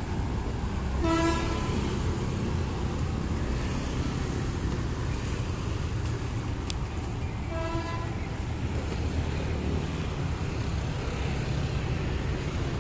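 Batara Kresna railbus horn sounding two short toots, about a second in and again at about seven and a half seconds, over the steady rumble of street traffic and passing motorbikes.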